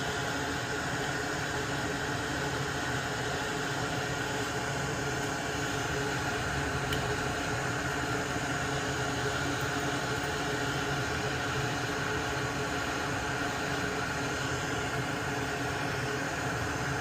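Hot-air rework station blowing steadily, a even hiss with a low hum underneath, heating solder joints to desolder a relay from a circuit board.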